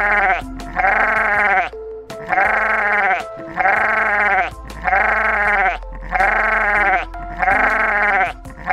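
Lamb bleating over and over in an even rhythm, about one call a second.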